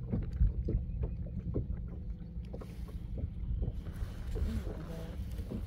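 Small aluminium jon boat under way on a lake: a steady low rumble of wind and water against the hull, with scattered light knocks.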